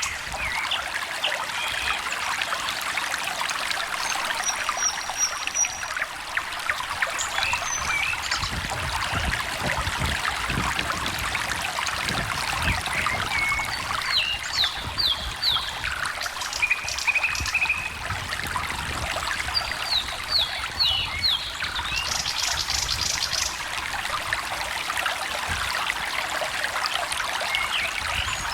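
Small stream trickling and babbling steadily, with songbirds calling over it: a few short high notes, and twice a quick run of three or four down-slurred notes.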